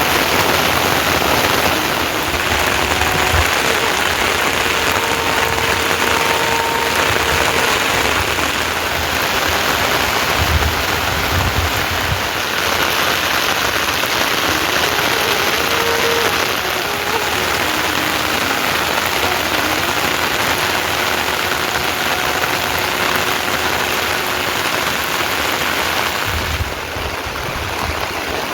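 Steady heavy rain falling, a dense, even hiss of water.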